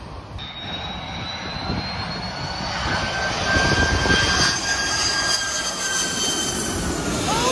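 Wide-body twin-engine jet airliner passing low overhead on final approach, its engines giving a steady whine of several high tones over a rushing rumble that grows louder about halfway through. Near the end, a short falling cry cuts in.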